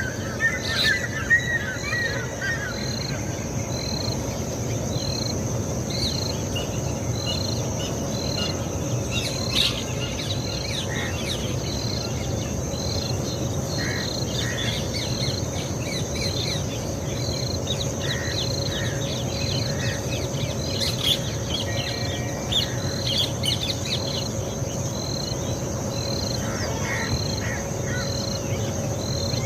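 Birds chirping over a steady high insect drone, with one short high note repeating about once a second.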